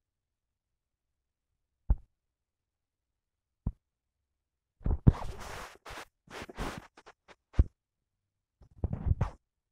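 Handling noise from a phone's own microphone as fingers tap and swipe on it: two soft knocks, then a few seconds of scratchy rubbing and knocks, broken by a short pause near the end.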